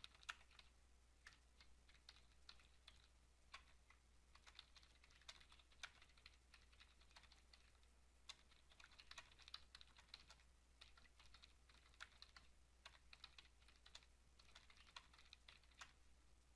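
Computer keyboard typing, faint, in short runs of quick keystrokes with brief pauses between them.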